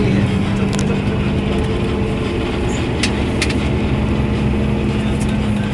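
Cabin noise of a coach bus driving: a steady low engine drone and road rumble, with a few light ticks and rattles about a second in and again around three seconds in.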